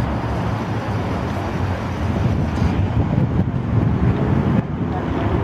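Wind buffeting the microphone: a steady low rumble over general outdoor city noise, with no distinct footsteps or other events standing out.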